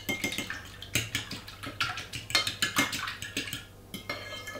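Egg mixture being stirred with a utensil in a glass bowl: quick, irregular clinks against the bowl that die down near the end.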